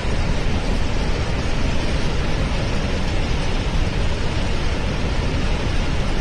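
Loud, steady rushing noise of a storm, with no breaks and strongest in the low end.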